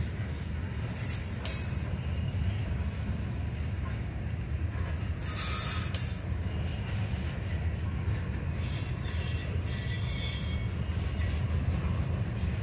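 Freight train cars rolling past on steel wheels: a steady low rumble from the wheels on the rails, with a brief high wheel screech about five seconds in.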